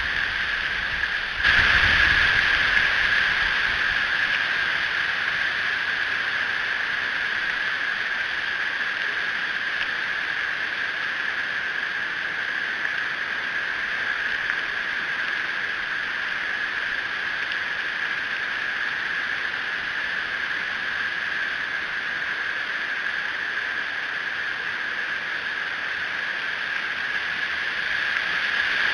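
Steady hiss of rain falling on the nest tree, coming down harder about a second and a half in, with a brief low rumble just after.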